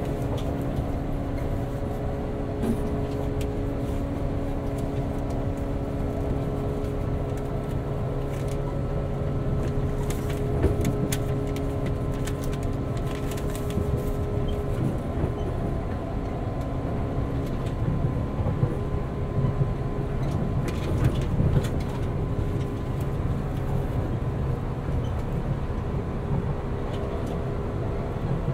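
A JR 189-series electric train running at speed, heard inside the motor car MoHa 189-20: its MT54 DC traction motors and gears whine at a steady pitch over the low rumble of the wheels, with scattered clacks on the rails.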